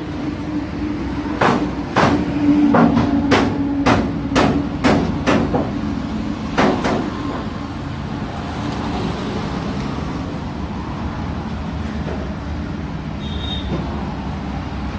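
About ten sharp, irregular metal knocks in the first half, from a steel bar striking the valve springs and retainers of a removed cylinder head, over a steady low hum.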